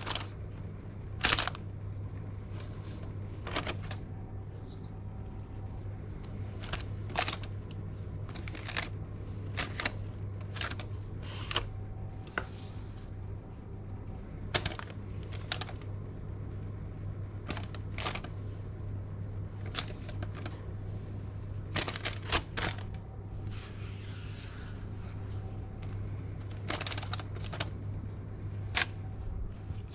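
Potato slices being laid by hand onto a baking-paper-lined tray: irregular light taps and crinkles of the paper, with a longer rustle of paper a little after the middle. A steady low hum runs underneath.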